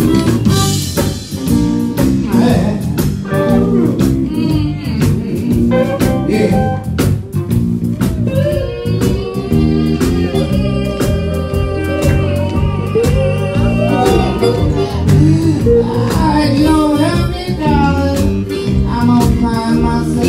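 Live blues band playing: electric guitar with bent, wavering notes over bass, keyboard and a steady drum beat, with a man singing into a microphone.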